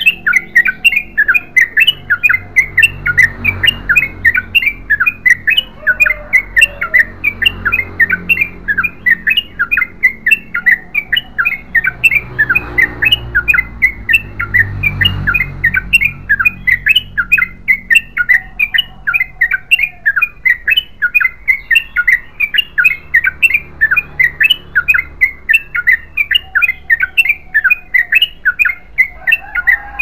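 Yellow-vented bulbul (trucukan) singing non-stop: a long, unbroken run of sharp, rapidly repeated notes, several a second.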